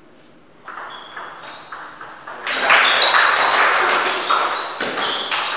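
A table tennis rally: the celluloid ball clicks sharply off bats and table. About two and a half seconds in, the rally ends on game point and a loud burst of crowd noise, clapping and shouts, follows, with high pings over it.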